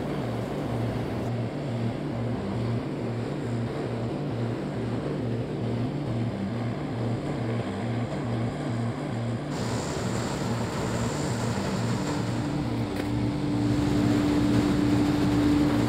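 Twin-engine turboprop airliner's engines and propellers running, a steady drone pulsing about three times a second. A steady hum joins about twelve seconds in.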